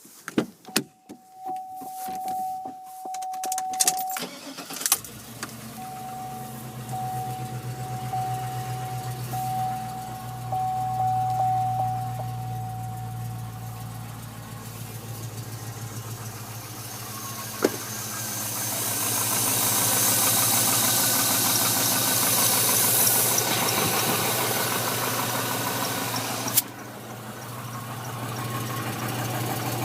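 A 2006 Chevrolet Trailblazer SS's 6.0-litre LS2 V8 is cranked from cold, catches about five seconds in, and settles into a steady idle. A steady electronic chime sounds before and after it starts. This is the cold start of an engine whose owner reports a knock that he says is not piston slap and grows louder as the engine warms.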